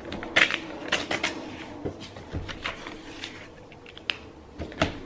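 A paper notebook and pen being handled on a glass tabletop: pages rustling as they are turned, with scattered light clicks and taps.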